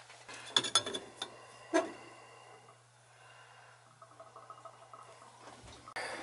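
Copper pipe and fittings clinking and knocking against each other as they are handled and fitted together: a quick run of metallic clinks about half a second to a second in, then a single knock near two seconds.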